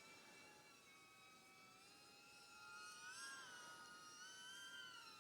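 Faint whine of a BetaFPV Pavo20 Pro II cinewhoop's brushless motors and ducted props in flight, rising in pitch about three seconds in as the throttle goes up, then easing slightly.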